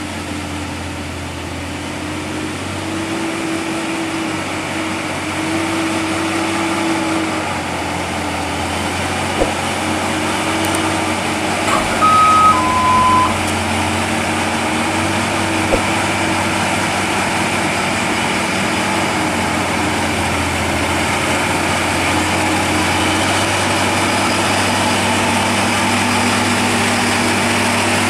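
Diesel engine of a heavily loaded Hino 500-series dump truck, hauling coal up a steep hairpin climb, running steadily under load and getting louder over the first few seconds as it comes nearer. About twelve seconds in, a short two-note electronic chime steps down in pitch: the subscribe-button sound effect.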